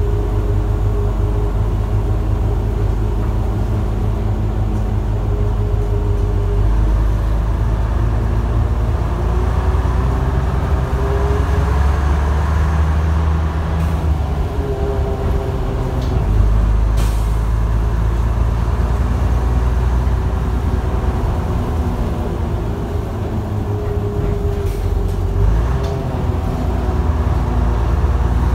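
A 1971 Daimler Fleetline double-decker bus's rear-mounted diesel engine, heard from inside the lower deck as the bus drives, its note shifting in pitch several times. A few short clicks and rattles come in the middle and near the end.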